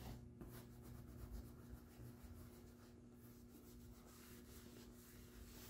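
Faint rubbing of a cloth working leather conditioner into a scuffed black leather motorcycle suit, in repeated strokes over a steady low hum.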